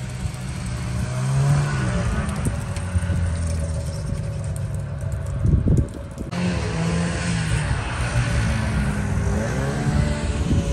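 Snowmobile engine running as the machine rides past, its pitch rising and falling as it speeds up and eases off.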